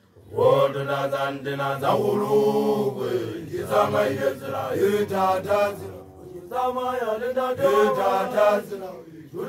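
Group of Basotho initiation graduates chanting together in long, drawn-out phrases with short breaks between them.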